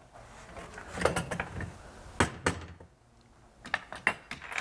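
A few light knocks and clinks as cut pieces of copper pipe are picked up and handled, two sharp ones a little after two seconds in and a quick cluster near the end.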